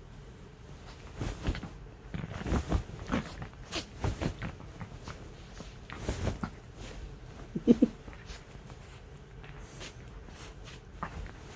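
Miniature dachshunds scuffling on a bed comforter: irregular soft thumps and rustling of bedding. A little past the middle comes the loudest moment, a short burst of three quick pitched dog sounds.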